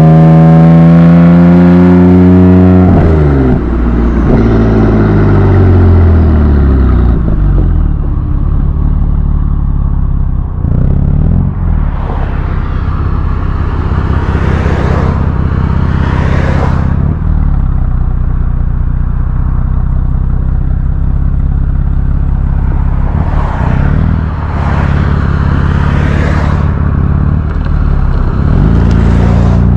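BMW F80/F82 M3/M4 twin-turbo inline-six exhaust, with the exhaust valves modified for a louder sound. The engine pulls up in pitch for about three seconds, then drops off and runs steadily, with a few surges of revs along the way.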